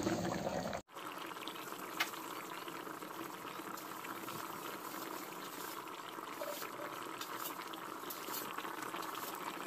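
Dhokar dalna curry boiling in a kadai: a steady bubbling with small pops, one sharper pop about two seconds in.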